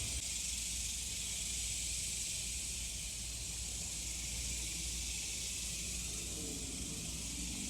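Steady high-pitched buzzing of a periodical cicada chorus, an even sizzle that goes on without a break.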